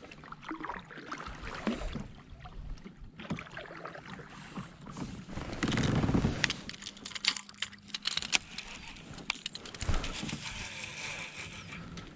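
Small knocks, clicks and rattles of gear and movement aboard a fishing kayak on the water, with a louder rush about six seconds in.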